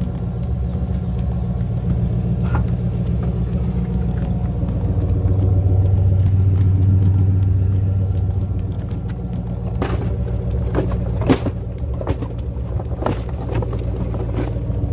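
1999 Jaguar XJ8's V8 engine idling steadily after an A/C compressor replacement, still running, with a few light clicks or knocks in the later part.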